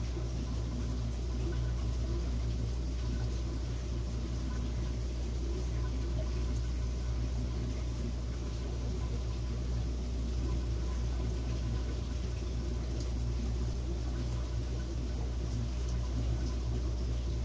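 Fish-room aquarium equipment running: a steady low electrical hum with an even watery hiss of moving, bubbling tank water.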